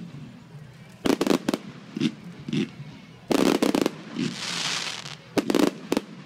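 Aerial fireworks bursting in quick volleys of sharp bangs, several at a time, with a hissing rush about four seconds in.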